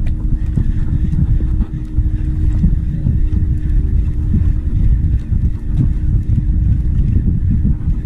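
Wind buffeting the microphone in a gusty low rumble on an outrigger boat at sea, with a steady motor hum running under it.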